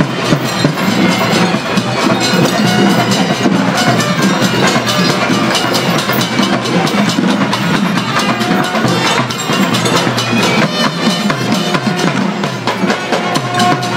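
Traditional Sri Lankan procession drums: dense, rapid drumming that goes on without a break.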